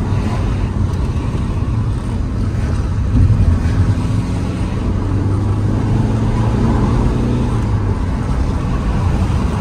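Alfa Romeo GT's 1.9 JTDM 150 four-cylinder turbodiesel engine and tyre noise heard from inside the cabin while driving: a steady low drone whose pitch climbs as the car accelerates, with a brief louder surge about three seconds in.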